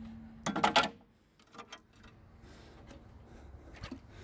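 A hand rummaging among loose parts and wires inside a gutted metal parking ticket machine: faint rubbing with a few small clicks, after a short louder burst about half a second in.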